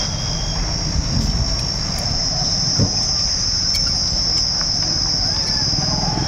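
A steady, high-pitched drone of insects, unbroken throughout, over a low background rumble.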